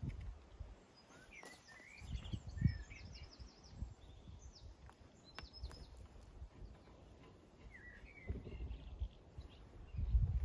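Small birds chirping in short scattered calls, with a few dull low bumps, the loudest about two seconds in and near the end.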